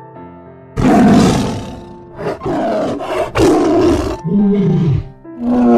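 Tiger roaring: a string of loud, rough roars, then two shorter calls that fall in pitch, with soft piano music beneath.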